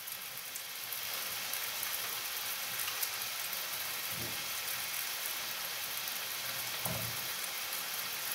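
Potatoes, carrots and meat frying in an open pan on a gas stove: a steady sizzle.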